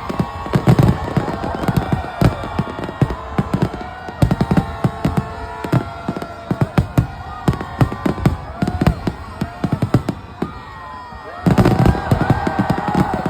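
New Year fireworks and firecrackers going off in a rapid, irregular string of bangs, with a denser, louder barrage a little before the end.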